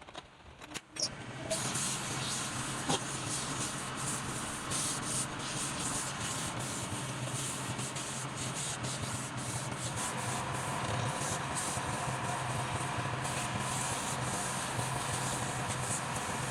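A motor-driven power tool abrasively sanding or grinding wood, starting about a second and a half in and running steadily under a low motor hum.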